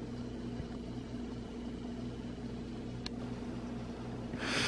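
Steady low electrical hum of room tone, with a faint click about three seconds in and a short burst of noise near the end.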